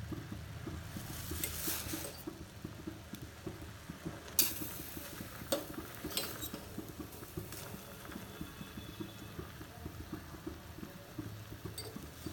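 Maggi instant noodles boiling in a pan of water, bubbling steadily, while a spoon stirs them and clinks against the pan a few times, most sharply about four and a half seconds in.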